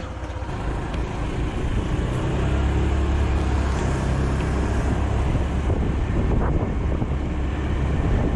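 Honda 125cc-class scooter pulling away and accelerating along the road: the engine and road noise grow louder over the first couple of seconds, then hold steady, with wind on the microphone.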